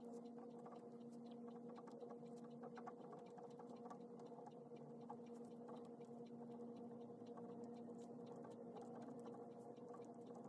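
Faint pen scratching on paper in short, irregular strokes and taps from handwriting, over a steady low hum.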